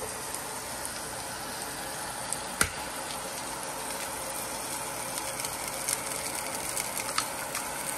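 Butter sizzling steadily in a nonstick frying pan on an induction burner. A single sharp tap comes about two and a half seconds in as an egg is cracked, and a few light crackles follow as the egg goes into the hot butter.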